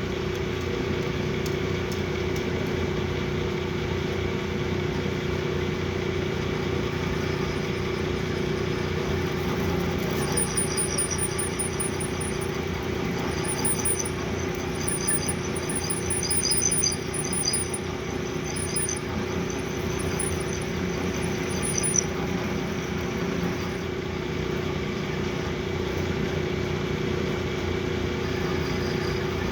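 Metal lathe running with a steady machine hum. From about ten seconds in to about twenty-two seconds, runs of short, high-pitched squeals come and go over it.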